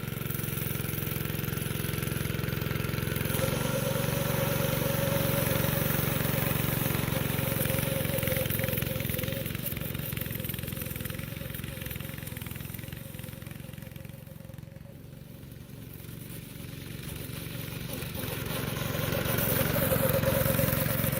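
Go-kart engine running steadily, fading as the kart moves away and growing louder again as it comes back near the end.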